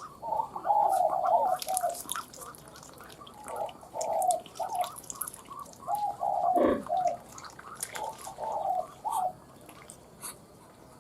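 Spotted dove cooing: four short phrases of low, mellow coo notes, a few seconds apart.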